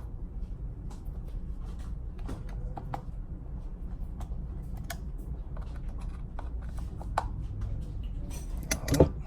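Light scattered clicks and taps of small parts being handled, with a louder knock near the end, over a steady low hum.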